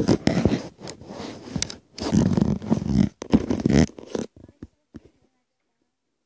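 Handling noise from a phone being jostled and rubbed in the hand, with loud, uneven scraping and rustling against the microphone for about four seconds.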